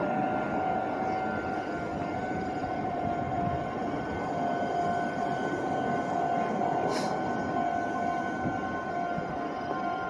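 Red Meitetsu electric commuter train pulling into a station platform at low speed: steady rolling and running noise with a continuous whine over it, and a short high hiss about two-thirds of the way in.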